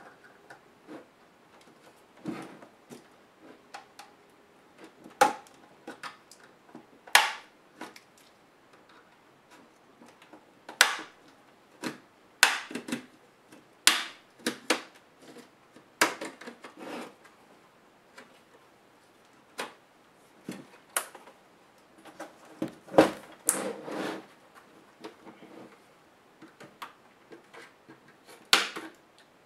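Plastic snap-fit clips of a Samsung NP305E7A laptop's case clicking and popping as the case is pried apart by hand along its seam: a long run of irregular sharp clicks, some loud, some faint.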